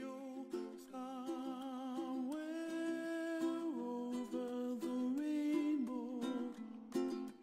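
A voice humming a slow, wordless melody of long held notes with a wavering vibrato, over a strummed string accompaniment.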